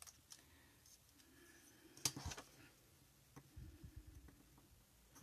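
Faint desk handling of a plastic set square and pencil on paper: a sharp click about two seconds in, then soft rustling and light ticks as the ruler is held down and a pencil line is drawn along its edge.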